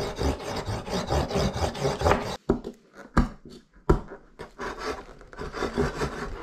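Serrated bread knife sawing and scraping at a crumbly toy excavation block on a wooden table, in quick back-and-forth strokes. Around three and four seconds in come two sharp knocks as the knife is jabbed down into the block, then the scraping resumes.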